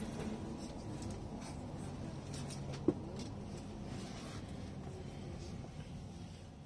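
Steady low hum of a tour coach's engine and road noise heard inside the cab while driving, with a single sharp click about three seconds in.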